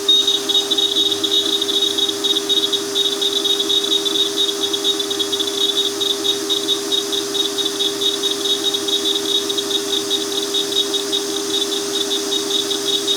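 CNC router spindle running with a steady whine while an end mill cuts an aluminium plate, adding a high, rapidly pulsing cutting sound over it.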